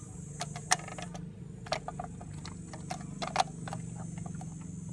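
A handful of light, scattered clicks and taps as fingers handle the wire center cap lock against the wheel's center cap and lug nuts, over a steady low hum.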